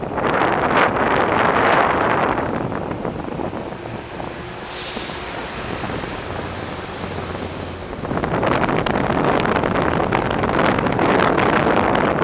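Wind buffeting the microphone and ZBoard electric skateboard wheels rolling over city pavement: a rushing noise that eases about three seconds in and comes back strongly about eight seconds in. A short, sharp hiss comes near the middle.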